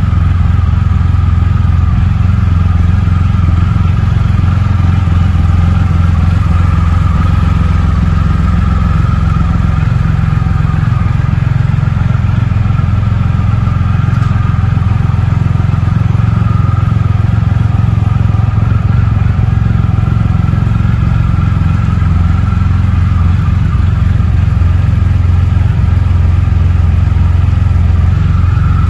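Triumph Rocket III Roadster's 2.3-litre inline-three engine idling steadily, with no revs.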